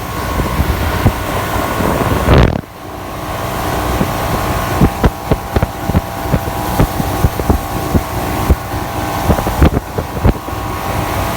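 Motorboat under way: a steady engine drone with wind buffeting the microphone and repeated sharp thumps. The sound drops off suddenly about two and a half seconds in, then builds back up.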